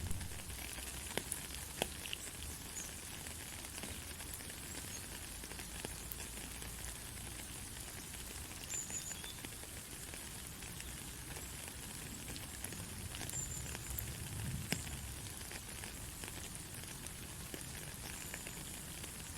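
Steady rain: a fine, even hiss of patter, with a few sharper single drop hits standing out now and then.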